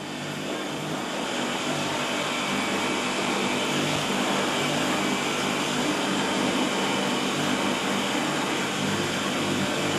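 Steady, loud mechanical whirring noise with a low hum underneath, unchanging throughout, of the kind a ventilation fan or blower makes.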